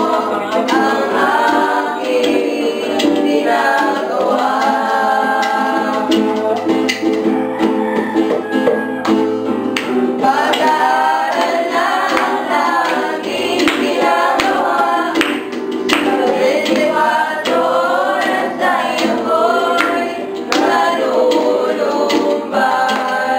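A group of young men and women singing a Tagalog song together, with guitar accompaniment.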